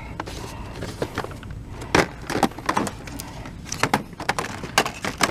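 Boxed action figures being handled on a store shelf: irregular clicks and knocks of plastic packaging, with a sharper knock about two seconds in and a cluster near the end.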